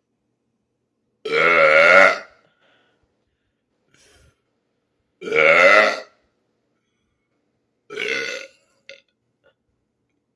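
A man burping on purpose three times. The first two burps are loud and about a second long each; the third, near the end, is shorter and quieter.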